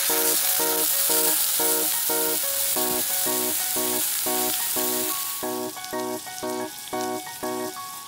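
A thick slab of meat sizzling in a hot frying pan just after it is laid in, the hiss easing after about five seconds. Background music with a steady beat plays under it.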